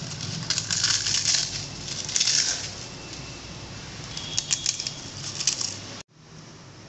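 Roasted papads (thin crisp lentil wafers) being crushed by hand into a glass bowl, crackling and snapping in several bursts. The crackling stops suddenly near the end.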